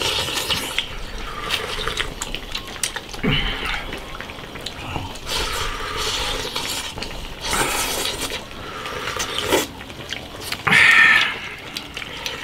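Two people slurping fish soup and rice from bowls held to their mouths: a string of wet slurps and sucking gulps, the loudest near the end.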